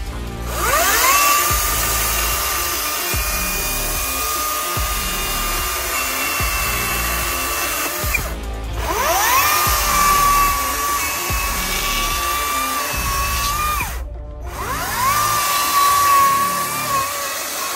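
CAT 60V 16-inch brushless cordless chainsaw spinning up to a steady high whine and cutting through a fallen tree branch. It winds up three times, each start a short rising whine. Background music with a steady beat plays underneath.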